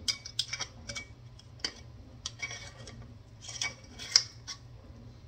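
Spice jars and their lids being handled over a plastic mixing bowl: a scattered series of light clicks, taps and short clinks, the sharpest a single click a little after four seconds in.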